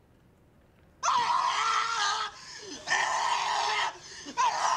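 About a second in, a person starts screaming: three long, rough screams of about a second each, with short breaks between them.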